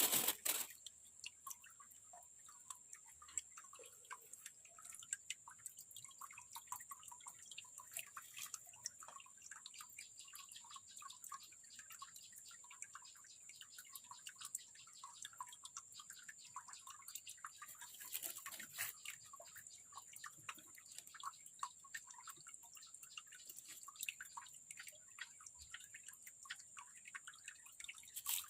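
Water trickling and dripping in many small quick plinks, with a steady high whine throughout. A few louder knocks come at the start, about 18 seconds in, and near the end.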